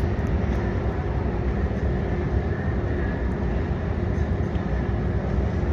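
Aircraft engines running on the ground, a steady low rumble with a faint constant hum and no change in level.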